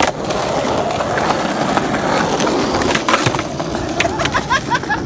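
Skateboard wheels rolling steadily over paving stones, then several sharp clacks of the board from about three seconds in, as the skater pops a frontside ollie attempt and the board hits the ground.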